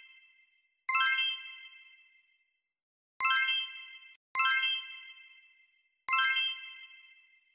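A bright, bell-like chime sound effect struck four times at uneven intervals, each ding ringing out and fading away over about a second, with dead silence in between.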